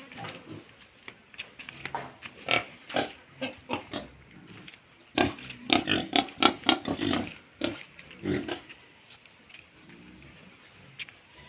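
Pigs grunting in a run of short calls, thickest and loudest from about five to seven and a half seconds in, then tailing off.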